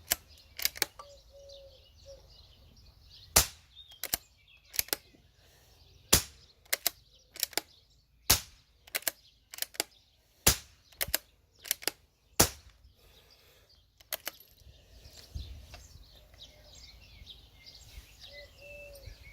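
Moderated CZ452 .22LR bolt-action rifle firing five subsonic rounds, about two seconds apart, each a short sharp report. Lighter metallic clicks from the bolt being cycled come between the shots.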